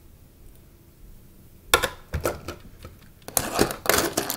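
LEGO bricks and minifigures clicking and clattering as hands rummage through a loose pile of them on a table. A few clicks come about two seconds in, then dense clattering near the end.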